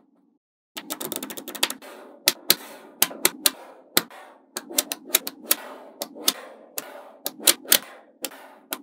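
Small magnetic balls clicking together as they are snapped into a flat panel by hand: an irregular, quick run of sharp clicks with a light rattle between them, starting a little under a second in.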